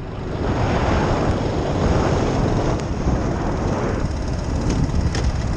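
2001 Suzuki Savage's 652cc single-cylinder engine running while the bike is ridden, with wind rushing over the microphone and swelling and easing every second or so.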